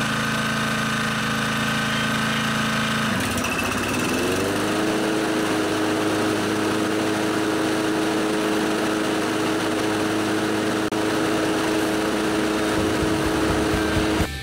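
Honda HR215 lawn mower's single-cylinder engine running steadily at a low speed, then revving up smoothly about three seconds in and holding an even higher speed without surging, its plugged slow-speed jet having been cleaned out.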